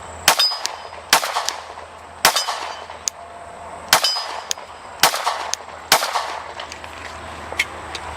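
Glock 17 9mm pistol fired in a string of about six shots roughly a second apart, with some rounds ringing the steel targets.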